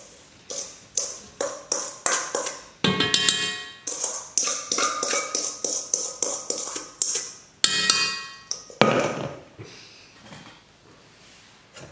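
A utensil knocking and scraping against a stainless steel mixing bowl, about three taps a second, as chopped fruit is emptied out of it into an enamelled cast-iron pot. The bowl rings out twice, about three seconds in and near eight seconds. About nine seconds in comes a duller knock, and after it the tapping stops.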